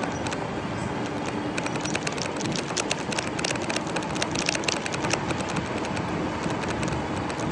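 Vehicle noise: a steady rumble with a faint hum and frequent small clicks and rattles.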